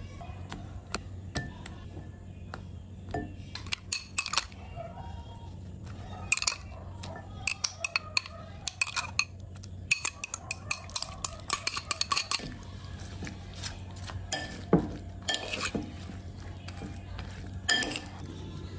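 Metal spoon clinking and knocking against a ceramic salad bowl as sliced vegetables go in and are tossed: irregular sharp clinks, busiest in the middle stretch, with a few louder knocks toward the end.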